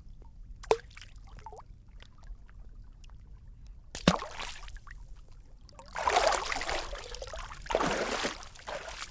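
A person swimming: small drips and laps of water, a sharp splash about four seconds in, then two spells of louder splashing from the strokes in the second half.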